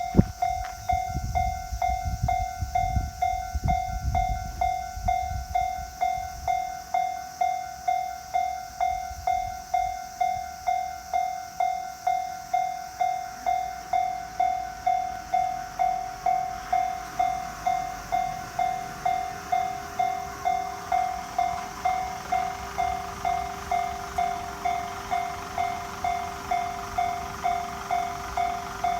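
Japanese level-crossing warning bell ringing steadily with its repeated electronic clang, a bit under two strikes a second. A train rumbles through the crossing with wheel knocks for the first several seconds; later a faint hiss and a low steady tone join the bell.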